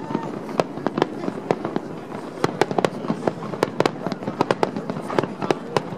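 Aerial firework shells bursting in a fireworks display: a rapid, irregular series of sharp bangs, a few every second, over a continuous background rumble.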